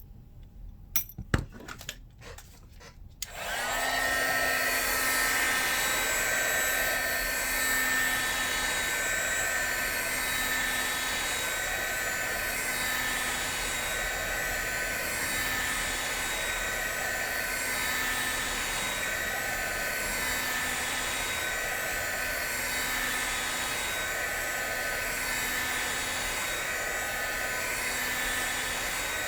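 A few light clicks, then about three seconds in a hot-air blower switches on and runs steadily, a rushing of air with a steady whine.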